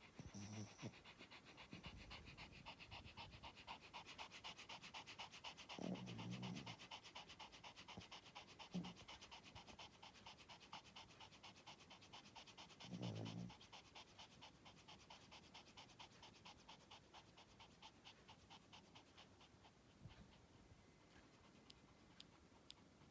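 Pomeranian spitz snoring in its sleep: faint, fast, even breaths, about five a second, with a few lower, longer sounds around 6, 9 and 13 seconds in.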